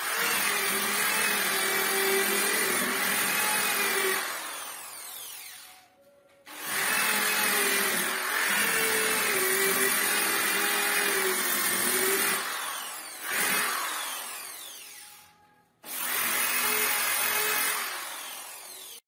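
Handheld electric disc sander running against a wooden door, its motor whine wavering as it is pressed into the wood. It runs in several spells, and each ends in a falling whine as the disc winds down before the sander is started again.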